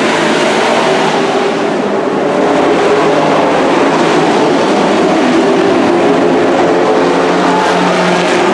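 Engines of several dirt-track race trucks running hard as the field laps the oval, a loud steady mix of overlapping engine notes that waver up and down as the trucks pass.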